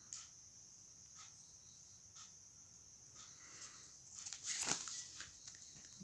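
Paper rustling as a textbook page is turned, loudest briefly about three quarters of the way in. Under it a steady high-pitched background chirring with faint ticks about once a second.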